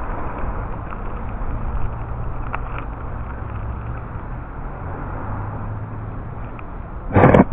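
Steady rolling and wind noise of a small vehicle riding along a paved road, with a low hum underneath that shifts slightly now and then. Near the end a short, loud burst of sound cuts in.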